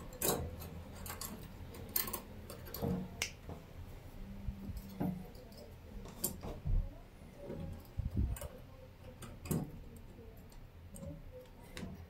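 Irregular light metallic clicks and taps from a 90-degree bolt latch being fitted to a wooden door: a screwdriver working its screw, and the latch bolt being handled and slid.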